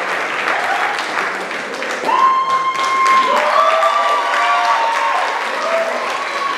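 Theatre audience applauding steadily, with long high cheers held over the clapping from about two seconds in.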